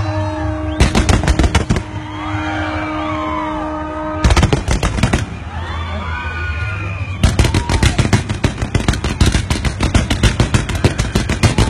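Fireworks going off in rapid volleys of many sharp cracking bangs: a short volley about a second in, another about four seconds in, and a long continuous run over the last four and a half seconds.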